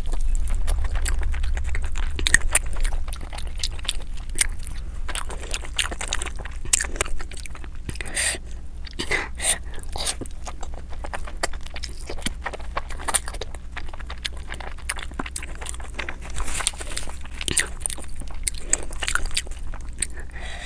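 Close-miked eating sounds: biting into and chewing crisp, broth-soaked tortillas filled with shredded meat and cheese, with wet mouth clicks and crunches in quick irregular succession over a low steady hum.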